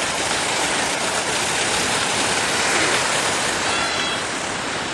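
Antique parade truck driving past: a steady rushing noise with no distinct engine note, and a faint brief high tone near the end.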